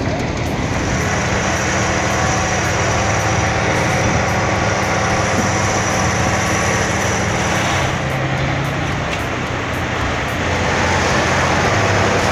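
Heavy diesel engine of a large tractor running hard, with a low steady drone whose pitch shifts about 8 seconds in and gets louder near the end, as the vehicle works to free itself from deep snow.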